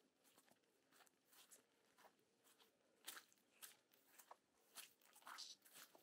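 Faint footsteps of a person walking at a steady pace, about two steps a second.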